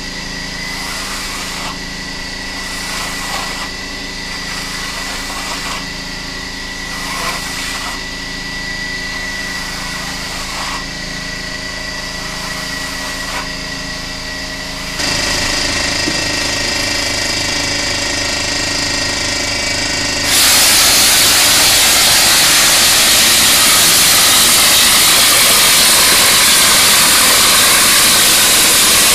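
A small air compressor runs steadily. About twenty seconds in, a stucco hopper gun (a Benron scoop and shoot) opens up and sprays mortar onto a wall with a loud, even rush of air.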